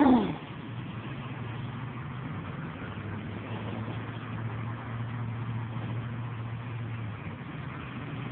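A motor vehicle's engine running steadily, a low hum that fades a little near the end. At the very start there is a brief, loud sound that falls quickly in pitch.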